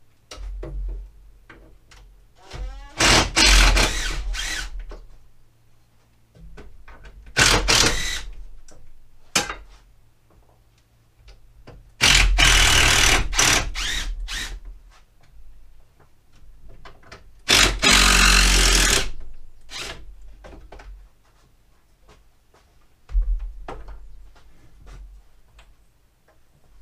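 Cordless drill-driver running in four bursts of a second or two, a few seconds apart, fastening parts of a wooden cabinet frame together, with small knocks of handling in between.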